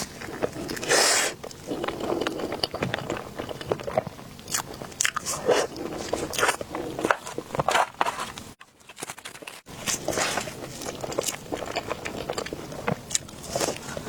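Close-up eating sounds of someone biting into and chewing crepes and mochi cakes: many short crisp clicks and smacks, with a brief pause a little past halfway.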